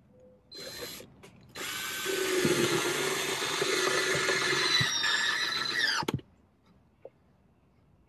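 Cordless drill driving a screw through a wooden nesting box into the wall: a short burst, then about four and a half seconds of steady running that winds down in pitch as the trigger is released.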